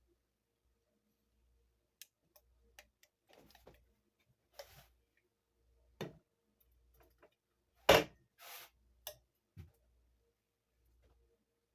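Scattered light clicks and knocks of things being handled and set down, with one sharper, louder knock about eight seconds in followed by a brief rustle.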